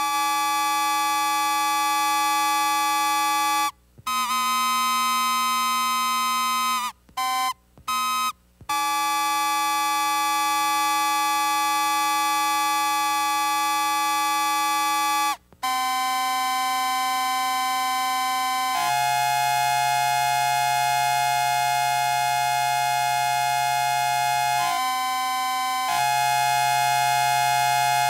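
Experimental electronic synthesizer drone: steady buzzy tones rich in overtones that hold for several seconds at a time, cut out abruptly a few times and jump to new pitches, with a deeper tone entering about two-thirds of the way through.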